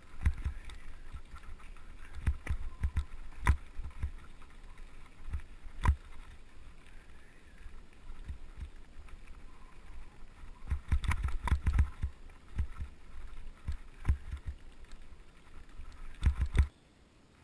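Mountain bike riding over a stony dirt track: a low rumble with rattling and sharp knocks as the bike jolts over the stones, the knocks thickest about two-thirds through and again just before the sound drops away near the end.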